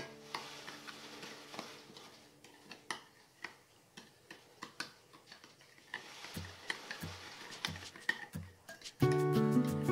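Metal spoon stirring sauce in a glass bowl: irregular light clinks and scrapes of the spoon against the glass, with a few dull knocks in the second half. Background music comes in near the end.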